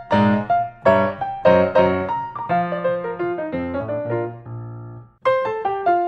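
Background piano music: a melody of separate struck notes, dipping briefly about five seconds in before the notes start again.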